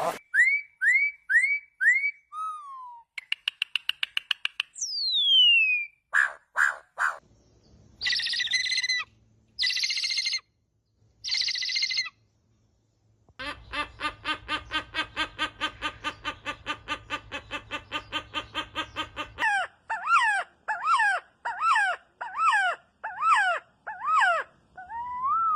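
A string of different bird calls, one after another: four quick rising chirps, a fast trill, a long falling whistle, three harsh squawks, a long rapid rattle, then a run of falling whistled notes about one a second.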